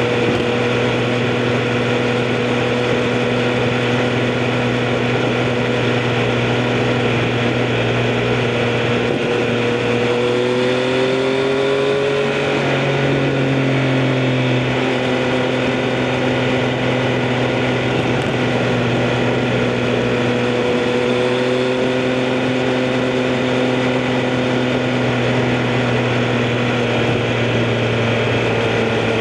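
Triumph Street Triple RS three-cylinder engine with an Akrapovic exhaust, running at steady revs under way; the pitch rises a little and eases back about ten to fifteen seconds in.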